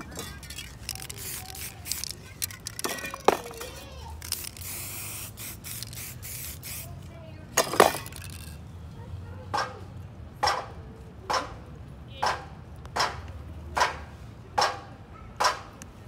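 Aerosol spray-paint can hissing in short and longer bursts, the longest about four seconds in. From about nine seconds, short sharp sounds repeat evenly a little more than once a second.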